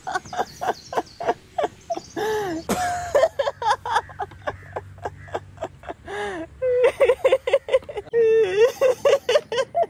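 A man laughing hard, a rapid run of voiced "ha" bursts that keeps going with a few longer breaths and cries of laughter.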